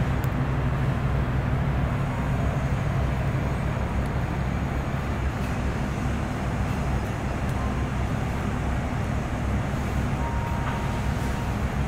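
Steady low hum of a commercial kitchen's ventilation and extractor hoods, with a few faint taps of a chef's knife on a cutting board.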